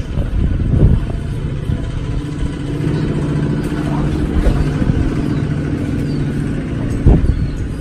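An engine running steadily, with a couple of heavy knocks about a second in and near the end.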